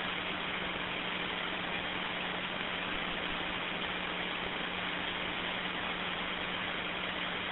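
Steady hiss with a faint low hum over a two-way radio channel: an open transmission carrying no voice.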